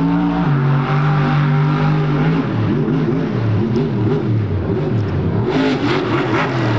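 Monster truck engine revving: it holds a steady pitch for about two seconds, then the revs rise and fall quickly again and again as the throttle is worked. A burst of rougher noise joins it near the end.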